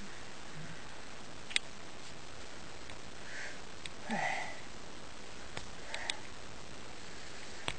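Small plastic building pieces clicking sharply a few times as fingers try to fit them together, with a couple of soft sniffs near the middle, over a steady background hiss.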